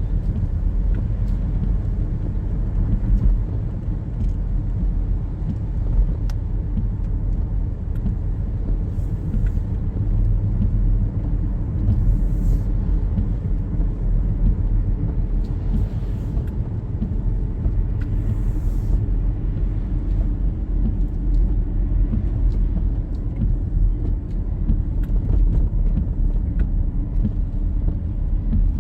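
Road noise inside a car driving on wet roads in the rain: a steady low rumble of engine and tyres, with a few brief hissing swells.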